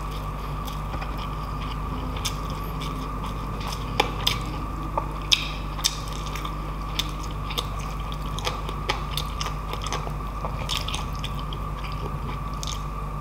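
Close-miked chewing and mouth sounds of a person eating pork and rice by hand, with many short wet clicks and smacks scattered through, the loudest a few seconds in. A steady low hum runs underneath.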